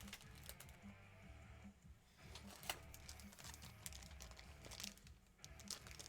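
Faint handling noise of a trading card and its plastic sleeve and holder: scattered light clicks and crinkles, over quiet background music.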